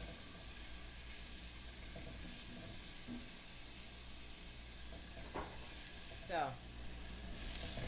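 Chopped fresh garlic sizzling steadily in hot olive oil in a saucepan, stirred with a silicone spatula. It is the light sauté sizzle the cook wants, hot enough to cook the garlic without browning or burning it.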